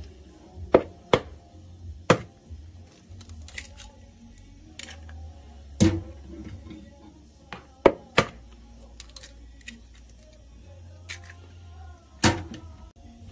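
Eggs being cracked open: sharp single taps at irregular intervals a few seconds apart.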